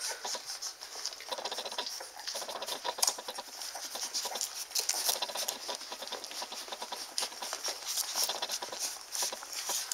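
A litter of newborn standard poodle puppies suckling at their mother: a dense, irregular run of small wet sucking and smacking clicks.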